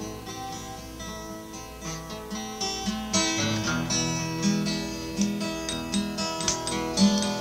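Acoustic guitar strumming an instrumental passage, with no singing. The playing grows louder and busier about three seconds in.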